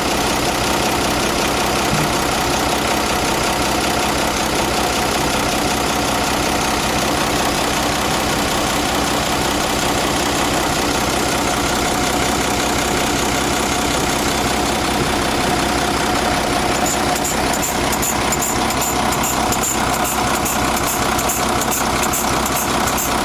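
Nissan FE6 inline-six diesel engine of a Metro Rider truck idling steadily. A faint rapid ticking joins about seventeen seconds in.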